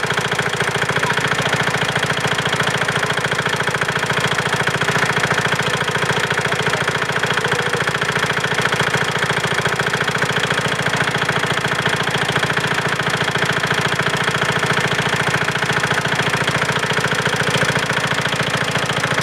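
A 5 hp single-cylinder Chinese diesel engine running steadily with a rapid, even knocking beat, freshly rebuilt with new piston rings.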